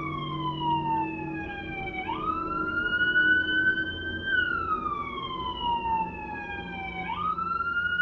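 Police car siren sounding a slow wail: twice, about two and seven seconds in, the pitch sweeps up quickly, holds, then slides slowly back down.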